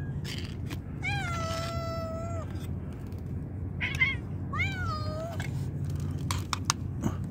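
Stray cat meowing twice: a long, drawn-out meow about a second in, then a shorter meow that rises and falls. A brief sharp sound comes between them, and a few clicks near the end, over a steady low hum.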